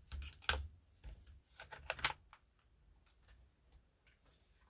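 Felt-tip marker pens clicking against one another and their plastic case as a pen is put back in: a cluster of sharp clicks in the first two seconds, then a few light taps and handling noises.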